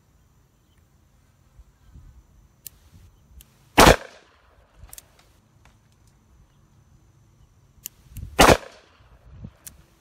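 Two shots from a Smith & Wesson Model 65 revolver with an unported 3-inch barrel, firing .357 Magnum factory rounds, about four and a half seconds apart, each followed by a short echo. A few faint sharp clicks come between and after them.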